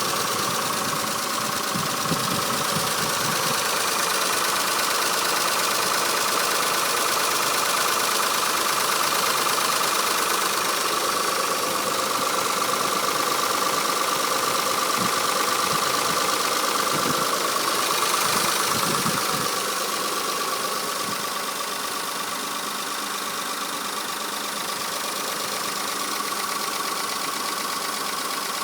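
Mitsubishi 6G72 24-valve V6 engine running steadily with a rapid knocking from its hydraulic lifters: the lifters are faulty and due for repair. It grows slightly quieter about two-thirds of the way through.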